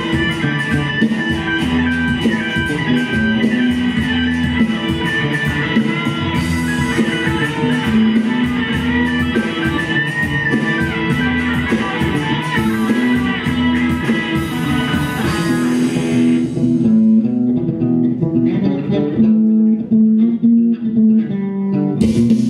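Live band playing an instrumental passage, with electric and acoustic guitars over a bass line and percussion. About sixteen seconds in, the percussion drops out and leaves the guitars and bass, and the full band comes back in near the end.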